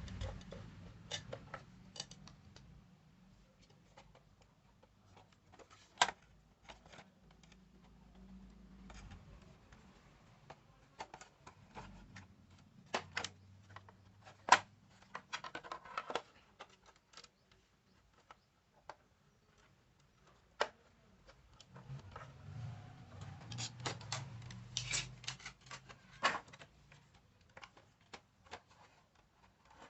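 Irregular light clicks, taps and rubbing from handling the old radio and its parts, with busier stretches about halfway through and again near the end.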